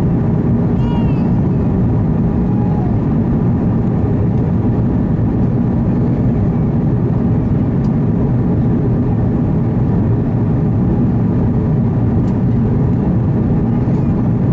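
Steady cabin noise of an Airbus A330-300 in flight: jet engines and airflow making an even, low rumble.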